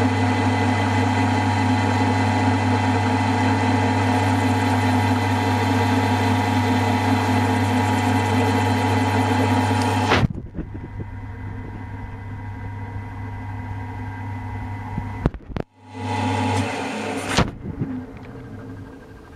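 Milling machine running steadily as a 1/8-inch end mill cuts a slot through a casting. The sound drops abruptly about halfway through and carries on much quieter, with a brief break a little later.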